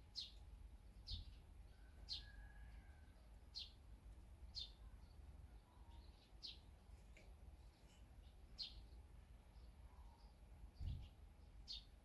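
Faint bird chirps: short, quick falling notes repeated about once a second. A soft low thump comes near the end.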